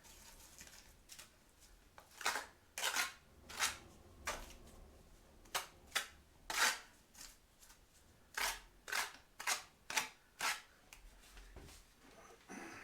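A run of about fifteen short, sharp scraping or tapping strokes, irregularly spaced.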